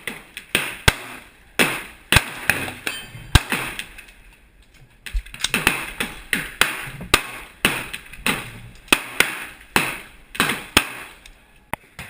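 AR-15 rifle firing a long string of shots at an uneven pace, each crack followed by a short echo.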